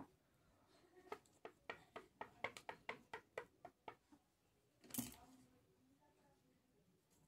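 A quick run of small sharp clicks, about five a second for some three seconds, then one short louder rustle: hands handling ribbon and a small plastic sewing-supplies packet close to the microphone.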